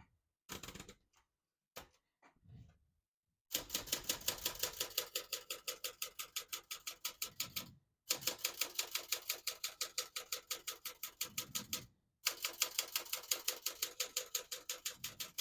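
Keys of a 1975 Olympia SF ultra-portable manual typewriter striking the platen in fast, even runs of about six keystrokes a second, in three bursts with brief pauses between them. A few quiet handling sounds come before the typing starts.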